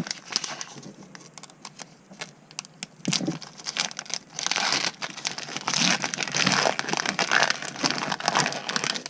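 Foil wrapper of a Pokémon TCG booster pack crinkling as it is worked open by hand: scattered light crackles at first, then steadier, louder crinkling from about three seconds in.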